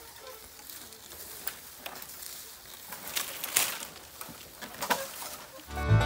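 A giant bamboo culm being levered over, with a few short rustles and cracks as it shifts and its leafy top brushes through the clump. Banjo music starts just before the end.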